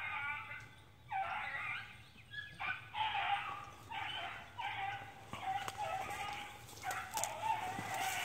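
Beagles baying in a string of long, drawn-out calls, about one a second with hardly a pause, the way hounds give voice while running a rabbit's trail.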